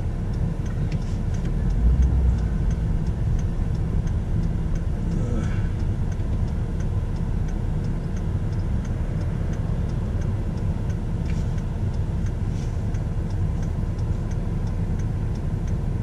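Inside a 2005 Chevrolet Silverado pickup's cab: the engine and road noise make a steady low rumble, with a faint, regular ticking over it that fits the turn signal.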